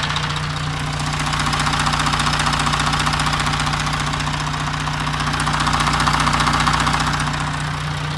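Audi Q7 4M 3.0 TDI V6 diesel (CVMD) engine idling steadily with a fast, even clatter. The customer complains of a knock from the engine bay, and the mechanics blame the timing chain tensioners.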